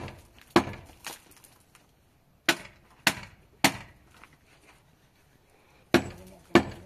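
A hand hammer striking a hollow concrete block wall, chipping out a slot in the blockwork. There are seven sharp blows, about two a second, in groups of two, three and two, with short pauses between the groups.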